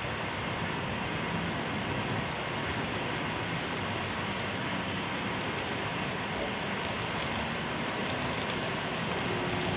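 Model railway train running along the track, a steady rolling rumble of wheels on rail with a faint motor whine.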